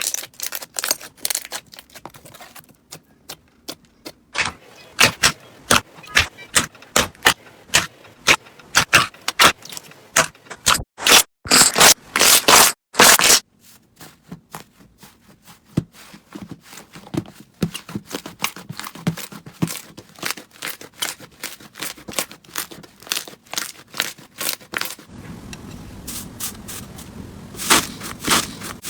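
Crunchy slime being worked by hand, giving a dense, irregular run of sharp crackles and pops. There is a short lull about three seconds in, and the loudest crackles come about twelve seconds in.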